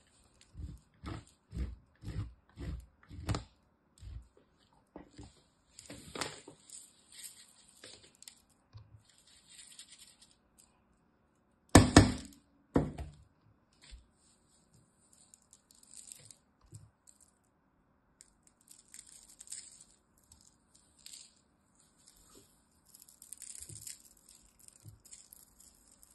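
Bar of soap grated on a metal box grater: a run of about eight firm rhythmic rasping strokes, two a second, then lighter scraping. Two loud knocks about a second apart near the middle, then soft, crisp rustling of dry soap shavings being stirred and scooped by hand.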